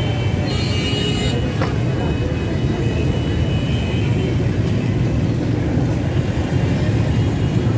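Steady low rumble of busy street noise, with a brief hiss about a second in.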